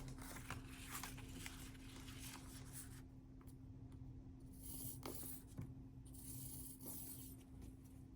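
Cardstock and paper pieces being handled: faint rustling and scraping, continuous for the first few seconds and then in a few short bursts, over a low steady hum.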